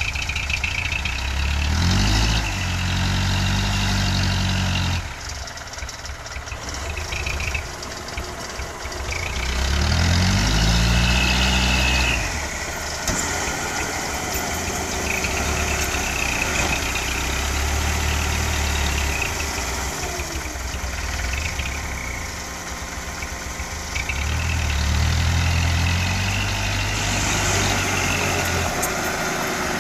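Diesel engine of a loaded Hino Dutro dump truck bogged in mud, revving up hard three times and holding the revs for a few seconds each time before dropping back to a lower run between attempts to drive out.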